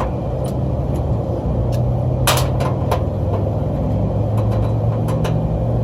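Sheet-metal access panels of a rooftop HVAC unit being popped off: a few sharp metallic clicks and knocks, the loudest a little over two seconds in, over a steady low mechanical drone.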